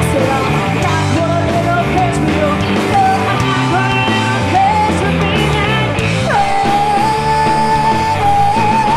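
Live rock band playing: a female lead vocal over electric guitar, bass guitar, drums and acoustic guitar. From about six seconds in the singer holds one long high note that wavers near the end.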